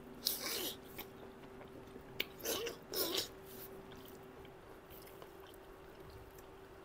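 Close-up mouth sounds of eating: biting and chewing fried food, in three short bursts in the first three and a half seconds, then a lull. A faint steady hum runs underneath.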